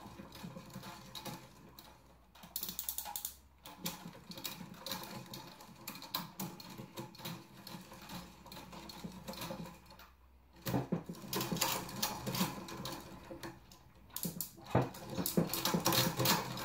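Bicycle chain and VECTr expanding chainring clicking and rattling as the crank is turned by hand. There are a few short pauses, and the clicking grows louder over the last third.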